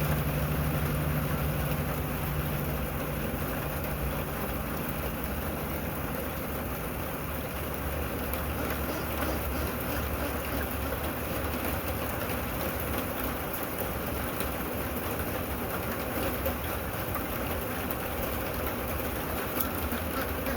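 Steady rain falling, an even hiss with faint light drop ticks, over a low rumble; a low hum fades out in the first few seconds.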